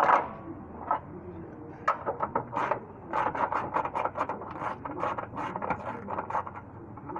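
Ratchet wrench clicking as a fastener is worked: a few separate clicks, then a quick run of clicks, about five a second, through the second half.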